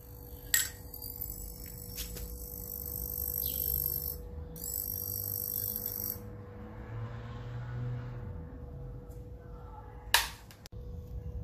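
Overloaded 80 W mercury vapour lamp, ballasted with a 4 kW resistor, giving off a high, rattling electrical buzz and sizzle that starts with a click and stops about six seconds in, over a low steady hum. About ten seconds in comes one loud sharp crack as the lamp fails and its arc tube breaks.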